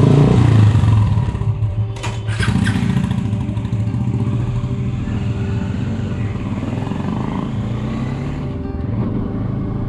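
Motorcycle engines running as the bikes pull away at low speed, loudest in the first second and then steadier. A couple of sharp clicks come about two seconds in.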